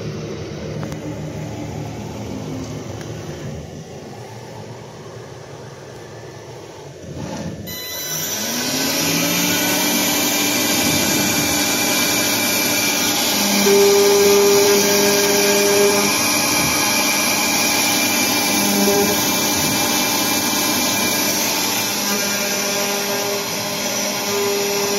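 Makera Carvera desktop CNC mill: about seven seconds in its spindle spins up with a rising whine, then runs loud and steady as the V-bit engraves a wood block, with a strong high hiss and brief extra tones coming and going on top.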